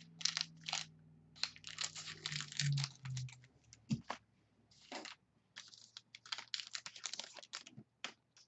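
Trading cards being handled and sorted by hand on a table: rapid, irregular rustling and light clicking.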